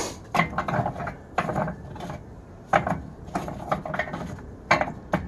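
Kingsford charcoal briquettes clattering and knocking together as they are set by hand into a kamado grill's firebox, in irregular clicks and short rattles.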